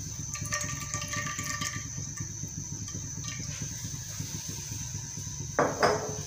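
Cooking oil pouring from a bottle into an empty nonstick karahi, the stream thinning to a trickle and stopping within the first two seconds, over a steady low hum. A brief, loud clatter near the end.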